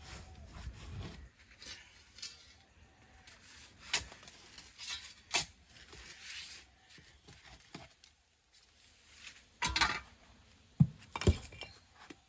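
Metal shovel digging into soil: the blade scrapes through dirt and strikes stones and buried debris with a few sharp metallic clinks, the loudest near the end.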